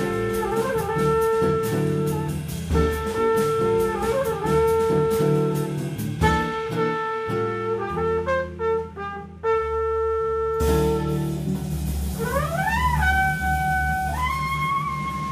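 Live jazz quartet playing: a trumpet plays long held notes over double bass, guitar and a drum kit keeping time on the cymbals. About ten seconds in the cymbals stop, and near the end the high notes slide upward and are held.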